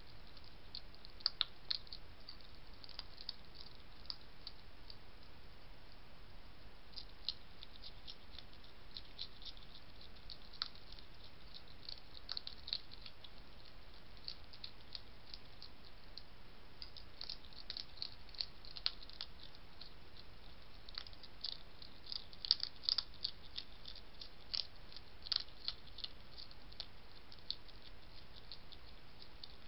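A European hedgehog eating dry pellets from a plate: irregular crisp crunches and clicks come in clusters, loudest a little past the middle, over a steady hiss.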